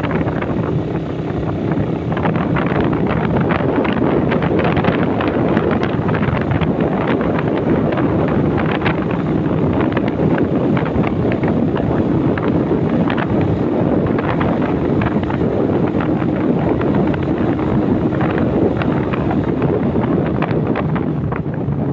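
Motorcycle riding at speed: heavy wind buffeting on the microphone over the steady drone of the engine.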